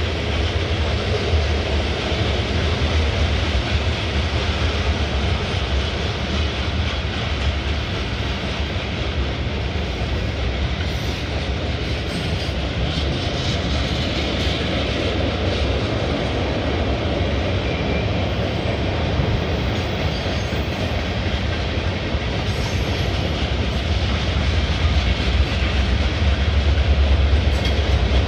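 Freight train cars rolling past: a steady rumble and clatter of steel wheels on the rails, with the deep rumble growing heavier near the end.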